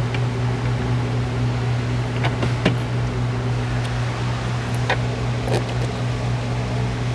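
Steady hum of an electric fan, with a few light clicks of parts being handled, about two and a half, three, five and five and a half seconds in.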